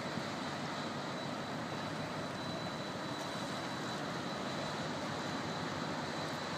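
Steady droning rush of a passing cargo ship's engine and its wash on the river, even throughout.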